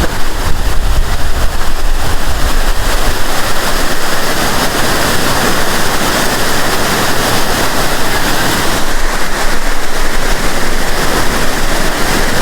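Small waterfall's water rushing, a loud steady noise, with a heavier low rumble in the first couple of seconds.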